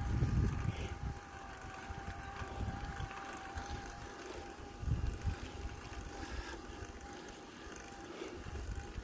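Bicycle ride uphill: low rumbling gusts of wind on the microphone at the start, around five seconds in and near the end, over a faint steady high whine.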